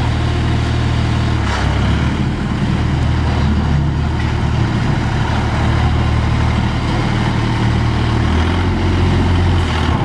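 Engine of a Wolwa 3-ton road roller running steadily as the roller drives along, its note shifting slightly about a second and a half in and again near the end.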